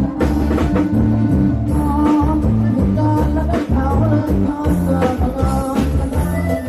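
Loud live Isan rock band music played through a rot hae parade sound truck's speakers, with heavy bass, a steady drum beat and a lead melody line.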